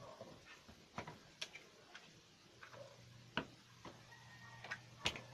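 Faint, irregular clicks and taps of hands handling homemade clear-glue slime, pressing it into a small container.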